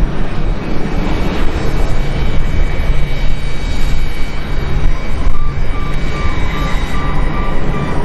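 Jet engines of a landing Boeing 737 as it touches down and rolls out on the runway: a loud, steady rumble. A faint high beep starts repeating about three times a second from about five seconds in.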